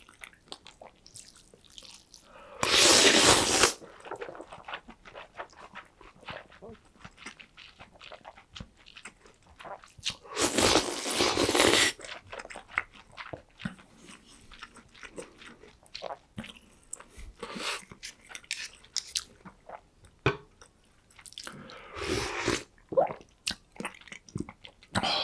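Close-up eating sounds of cold noodles and breaded pork cutlet: crunching and chewing with many small crisp clicks, broken by two louder stretches of about a second each, near the start and in the middle.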